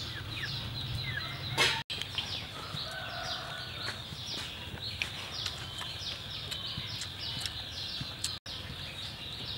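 Small birds chirping in a steady outdoor chorus of many short, falling chirps. A brief louder rustle comes just before two seconds in, and the sound cuts out for an instant twice.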